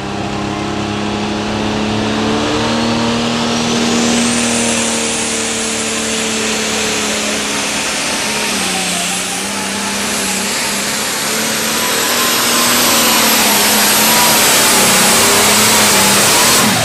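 International 1586 Pro Farm pulling tractor's turbocharged diesel running flat out under load down the pulling track. A high turbo whine climbs over the first few seconds and then holds, while the engine note wavers as the load changes.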